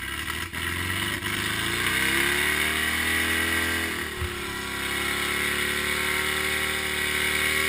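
Volkswagen Baja Bug's engine revving hard as it struggles for traction in slippery mud. The pitch climbs over the first few seconds, dips briefly about four seconds in, then is held high.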